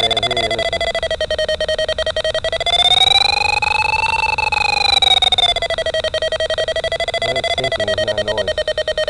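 Arduino-based DIY sailplane variometer beeping through a loudspeaker: a rapid train of short beeps. About three seconds in the pitch rises, then it falls back about five seconds in. The beeps signal that the glider is climbing in lift, and the higher pitch means a stronger climb.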